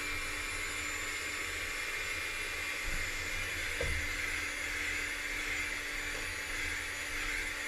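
Electric mixer running steadily at one speed, its beaters whipping buttercream frosting of butter, powdered sugar and milk in a glass bowl.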